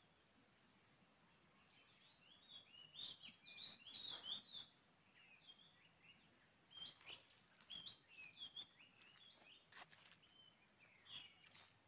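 Faint, quick, jumbled high chirps in two bouts, one starting about two seconds in and another about seven seconds in, like a small bird calling.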